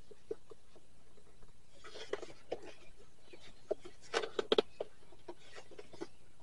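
Light clicks, taps and scrapes of a plastic interior door panel and its wiring being handled and fitted against a pickup truck's door, with a short cluster of knocks just past four seconds in.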